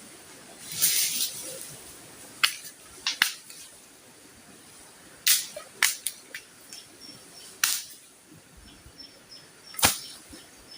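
Sharp, irregular knocks or snaps, about nine in all with uneven gaps and a rougher rustling burst about a second in. A faint insect chirps steadily behind them.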